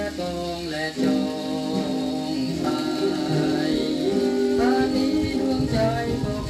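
Old Thai band song playing from a shellac 78 record on a vintage record changer: melodic lead lines over sustained band accompaniment.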